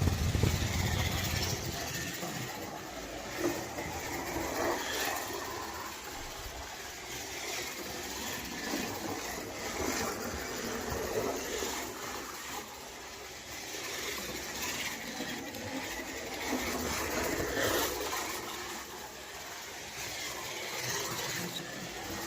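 1/24 scale slot car with a Strombecker electric motor running laps on a slot track: a steady whirring motor and rattling guide and wheels, growing louder and fainter in waves as the car comes round.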